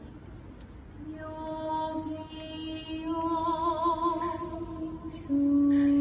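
A single singing voice holding long, slow notes, some with vibrato, resuming after a short pause about a second in; a loud held note near the end is the strongest part.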